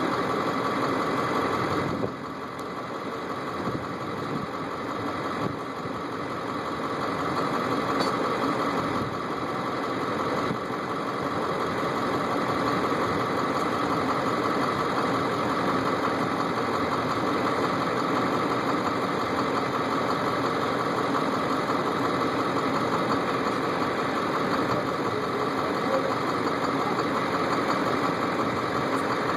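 Diesel engine of sugar beet harvesting machinery running steadily, with a steady whine over the engine drone. The sound drops in loudness about two seconds in and builds back up over the next several seconds.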